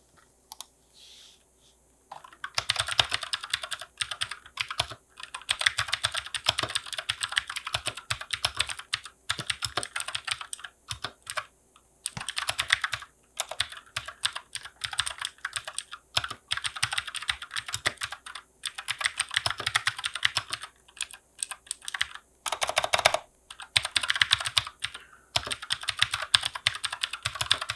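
Typing on a Keychron K6 mechanical keyboard fitted with Keychron Blue clicky switches: a fast, dense clatter of keystrokes with a lot of clickiness. It starts about two seconds in, with a few short pauses between runs.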